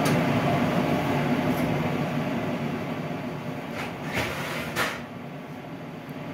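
Steady workshop hum that eases off partway through. A few sharp metallic clicks and a knock come about four seconds in as the door of a small heating oven is unlatched and swung open.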